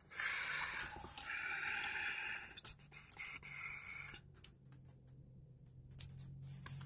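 Scraping and rubbing handling noise for about four seconds, then quieter with a few faint clicks, over a faint steady low hum.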